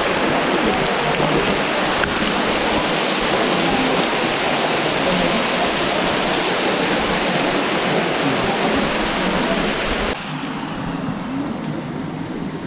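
Waterfall: falling water rushing in a loud, steady hiss. About ten seconds in it drops to a quieter, duller rush.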